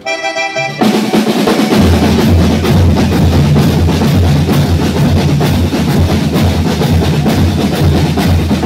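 Marching-style percussion band of snare drums, bass drum and cymbals playing a fast, dense beat. It comes in about a second in, after a brief held note.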